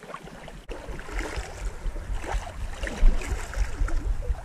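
Shallow creek water sloshing and splashing in irregular bursts, with the loudest splash about three seconds in, over a low wind rumble on the microphone.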